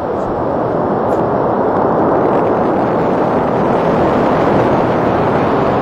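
Atlas V rocket's RD-180 main engine running at full thrust in the first seconds of ascent: a loud, steady rush of noise that swells slightly over the first couple of seconds.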